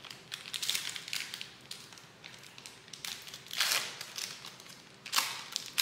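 A 2023 Panini Donruss UFC trading-card pack's foil wrapper being opened, crinkling in a series of short rustles. The loudest rustle comes about three and a half seconds in, with another near the end.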